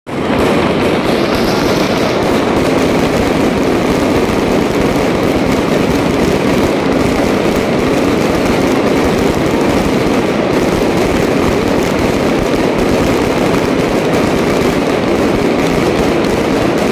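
Aerial fireworks display bursting in a dense, unbroken barrage, the blasts running together into one steady, loud noise with no gaps between them.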